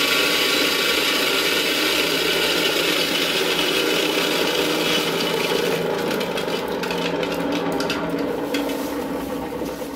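Portable electric dry mill grinder running and grinding rice: a steady motor hum with a gritty grinding hiss. About six seconds in the grinding hiss thins out and the machine gradually gets quieter.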